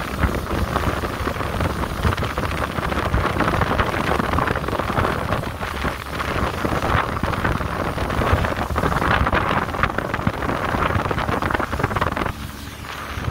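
Small fishing boat under way: its outboard motor runs under a steady rush of wind on the microphone, which eases for about a second near the end.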